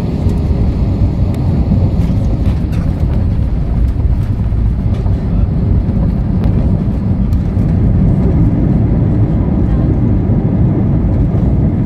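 Jet airliner cabin noise during the landing rollout: a steady, loud rumble of the engines and of the wheels running on the runway, with the spoilers raised after touchdown.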